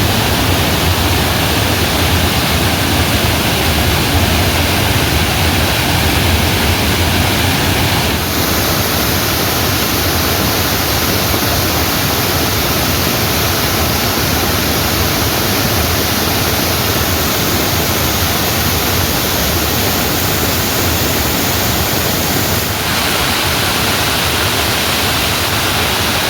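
Heavy rain pouring steadily, a dense even hiss; its character changes abruptly about eight seconds in and again near the end.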